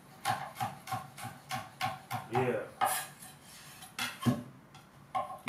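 Chef's knife dicing jalapeño peppers on a wooden cutting board: a quick run of blade knocks on the board, a few a second, with short pauses near the end.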